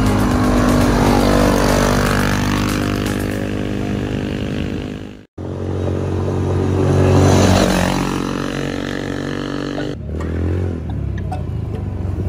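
Small engine of a kids' off-road buggy running as it drives along a dirt track. It cuts out abruptly for an instant about five seconds in, then grows louder as the buggy comes closer.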